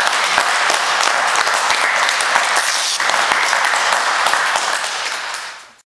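Spectators applauding, a dense patter of many hands clapping that fades out near the end.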